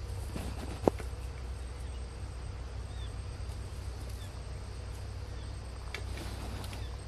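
Outdoor ambience by the water: a steady low rumble with a few faint bird chirps, and one sharp click about a second in.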